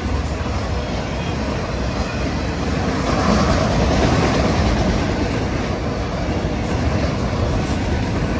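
Autorack cars of a freight train rolling past close by: a steady rumble of steel wheels on the rails.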